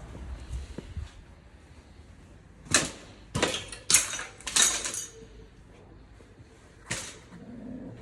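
Sharp metallic clanks and scrapes of tools and parts being handled during clutch and flywheel work: four in quick succession a few seconds in, then one more near the end.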